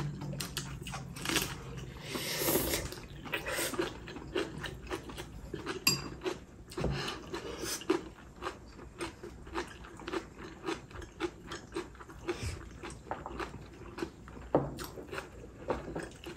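People chewing and crunching crisp cucumber-chili-pepper kimchi, with a steady run of small bites and wet mouth clicks. There is a louder stretch of crunching about two seconds in.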